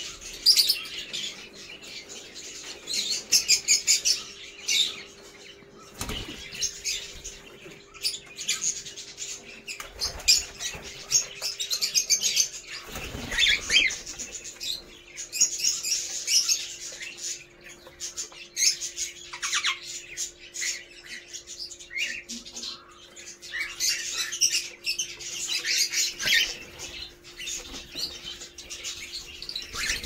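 Aviary cockatiels and ring-necked parakeets calling, many short high chirps and whistles overlapping without a break.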